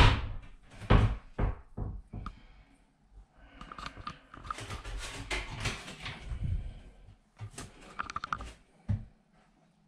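A sharp click, then a few knocks, a stretch of rubbing and rustling, a run of small clicks and a last thump near the end: handling noise in a small bathroom.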